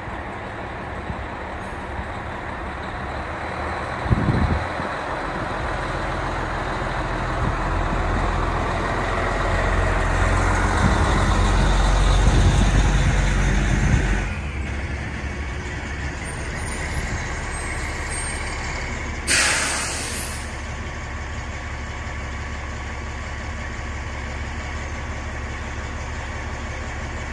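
Oshkosh airport deicing truck's diesel engine running as the truck pulls away, growing louder and then dropping back about halfway through. About 19 seconds in there is a sharp hiss of air brakes lasting about a second.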